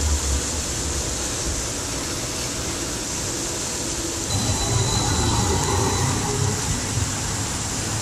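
Brookville Liberty streetcar running along the street amid steady city traffic noise, swelling into a louder rumble about four seconds in, with a thin high whine for a couple of seconds.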